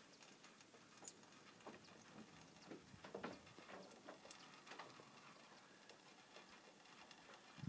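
Near silence: faint outdoor background with a few scattered soft clicks and ticks.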